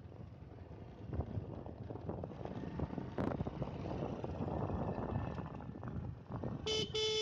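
Riding on a motorcycle: wind rushing over the microphone over the running engine and tyre noise. Near the end a vehicle horn sounds in a few short toots.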